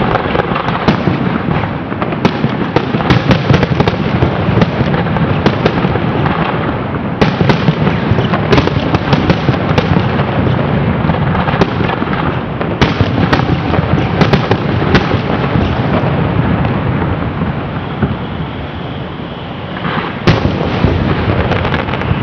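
Aerial fireworks shells bursting in quick succession: a dense run of booms and sharp reports, with a short lull near the end broken by another loud burst.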